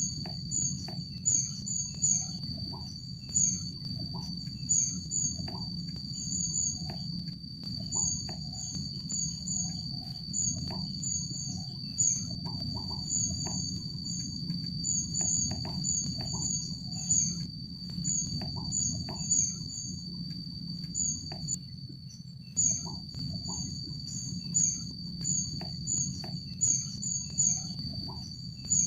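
Rufous-backed kingfisher calling: thin, very high, short notes repeated in quick runs of two to four, over and over. Under them run a steady high insect drone and a low rumble.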